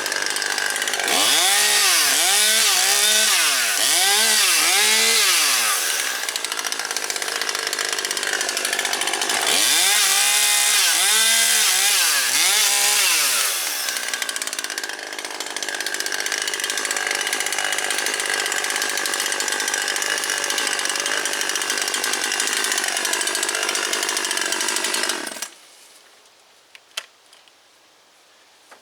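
Husqvarna 540XP Mark III two-stroke chainsaw cutting branches. The engine revs up and down repeatedly through two cuts and runs steadily between and after them. It shuts off abruptly a few seconds before the end, leaving a few faint clicks.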